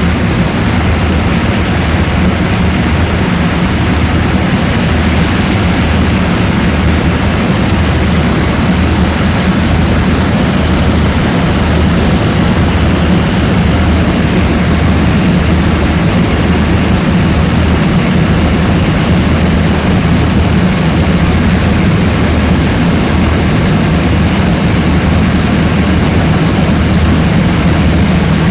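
Propeller airplane's engine droning steadily and loudly, heard in flight from close to the engine, with a low hum and heavy airflow noise that hold unchanged throughout.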